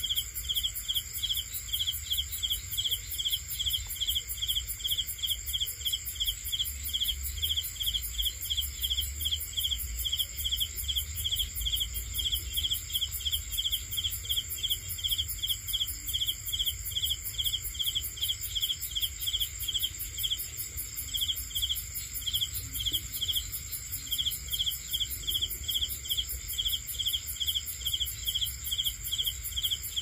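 Night insects: a cricket chirping steadily about three times a second, pausing briefly twice in the second half, over a continuous high-pitched insect trill.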